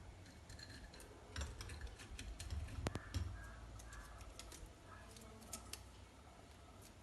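Irregular light clicks and taps with a few low thumps, densest in the middle, like small objects being handled.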